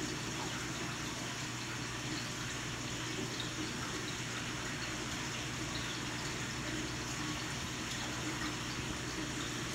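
Steady rush of aquarium filter water circulating in a large fish tank, with a low steady hum underneath.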